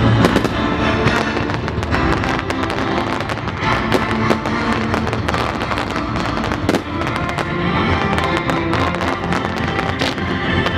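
Aerial fireworks bursting and crackling, many sharp cracks and bangs in quick succession, with music playing alongside the display.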